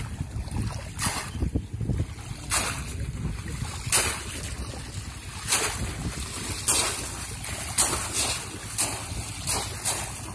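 Bamboo polo fish traps thrust down into shallow water again and again, a splash every second or so, along with the swish of wading legs. A low rumble of wind on the microphone runs underneath.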